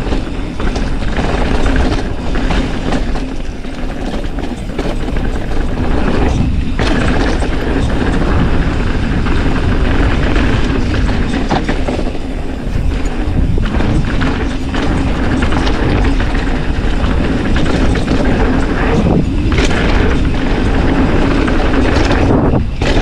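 Mountain bike descending a fast dirt trail: a steady rush of tyres and wind, with the bike rattling and clattering over bumps.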